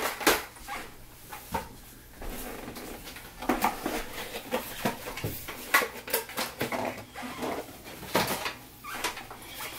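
Babies' short whimpers and fussing sounds among scattered light knocks and clicks of toys: a wooden peg puzzle piece and the buttons of a plastic pop-up toy on high-chair trays.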